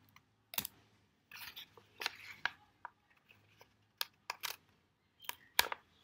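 Clear adhesive tape pulled from a desktop tape dispenser and torn off, then handled onto a folded paper tube: short scattered rips, rustles and taps.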